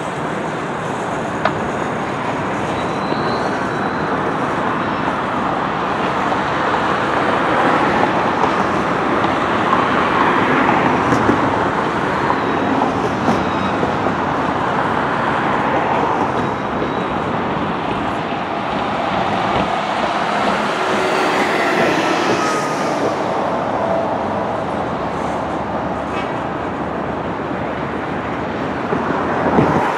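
Freight train cars rolling past: a steady rumble of steel wheels on rail with scattered clicks, and a faint squeal about two-thirds of the way through.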